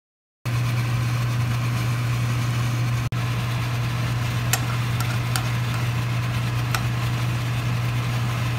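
A steady low machine hum that starts abruptly, drops out for an instant about three seconds in, and carries a few faint ticks in its second half.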